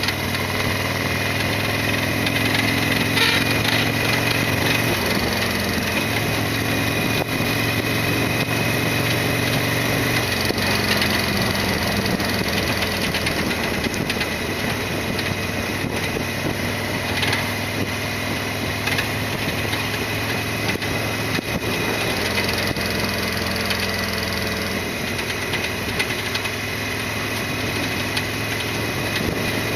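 Harley-Davidson Sportster XL1200R's air-cooled V-twin engine running steadily, its pitch shifting a few times.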